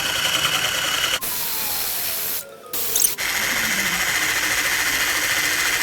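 Electric mixer whirring steadily at high speed, beating egg whites and sugar into meringue. The whir breaks off briefly about a second in and again for about half a second midway.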